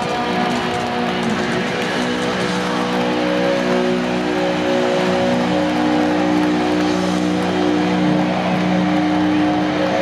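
A heavy metal band playing loud and live: distorted electric guitars hold long chords that change a few times, over a dense wash of drums and arena sound.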